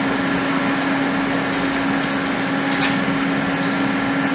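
Steady hum with an even hiss from MIG welding equipment running.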